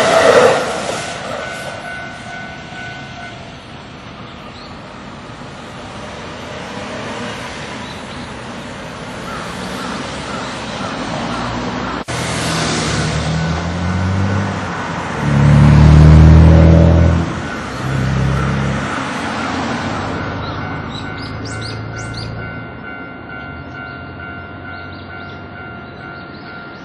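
Road traffic driving over a railway level crossing once the train has gone. The crossing bell's ringing tones stop a few seconds in. A heavy road vehicle passes loudest about halfway through, its engine changing pitch in steps as it pulls away.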